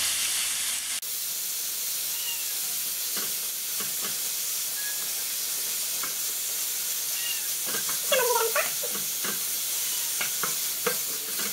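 Chicken pieces and onion sizzling in a frying pan, stirred with a wooden spoon that scrapes the pan now and then. A cat meows about eight seconds in.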